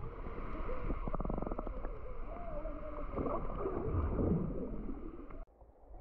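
Muffled rushing and gurgling of pool water heard through a camera held underwater, with a few faint muffled voices and a quick run of clicks about a second in; it cuts off abruptly near the end.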